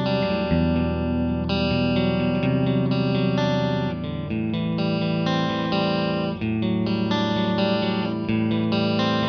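Fender American Performer Stratocaster electric guitar played with a clean tone, recorded direct through a Line 6 Floor POD Plus modelling a Fender Twin Reverb amp. Ringing chords change about once a second.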